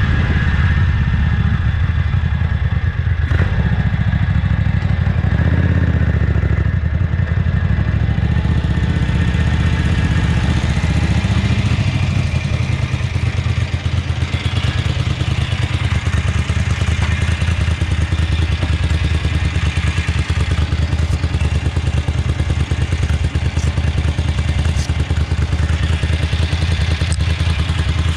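1974 Ducati 750GT's air-cooled 90-degree V-twin running through stainless Conti-replica mufflers: first under way on the road, then idling with an even beat from about halfway in.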